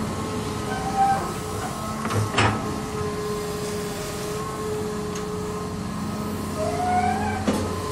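Hitachi Zaxis 200-1 hydraulic excavator's diesel engine running steadily while the boom and bucket work. Short whines come about a second in and near the end, and sharp knocks about two and a half seconds in and near the end.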